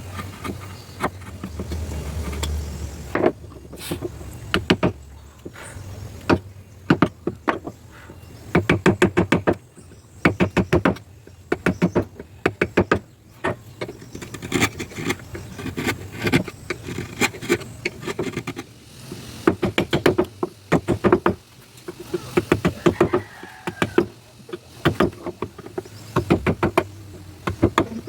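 Carving chisel being struck with a mallet into hard ironwood: quick runs of sharp taps with short pauses between them.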